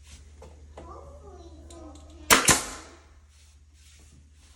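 Nail gun firing twice in quick succession into wood, two sharp shots about a fifth of a second apart, each with a short hissing tail.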